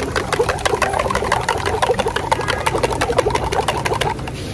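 A spoon clicking rapidly against the inside of a metal mug as egg is beaten and poured onto a hot griddle. The clicking stops about four seconds in.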